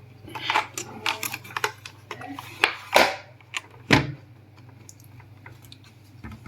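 Plastic clicks and knocks as a mechanical keyboard and its detachable plastic wrist rest are handled and fitted together: a quick run of sharp clicks over the first few seconds, the two loudest near the middle, then only faint handling.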